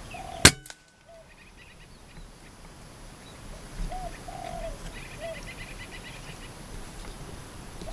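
A single sharp air-rifle shot about half a second in, the loudest sound, followed at once by a fainter tick. Spotted doves coo in short repeated phrases before and after it, and a small bird chirps in quick runs.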